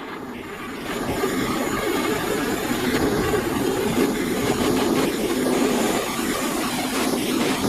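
Peppercorn A1 steam locomotive Tornado working hard up Dainton bank, its three-cylinder exhaust beating rapidly. It grows louder about a second in as it approaches.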